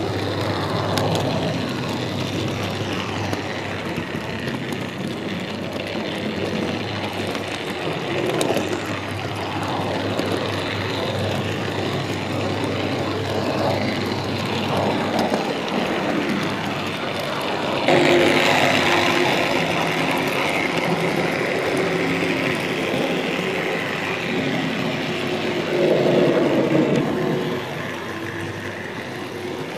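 Tri-ang TC Dock Shunter model locomotive running with its wagons: a steady electric-motor hum under the rolling rumble of wheels on the track. The sound turns suddenly louder and brighter about two-thirds of the way through.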